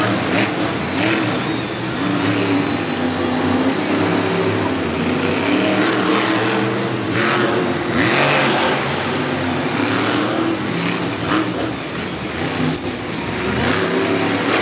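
Monster truck's supercharged V8 revving hard in repeated throttle bursts as the truck wheelies across the dirt arena floor.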